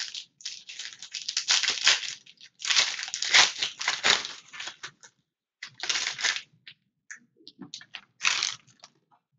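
Gold foil wrapper of a trading-card pack being torn open and crumpled by hand: several crinkling bursts with short gaps between them.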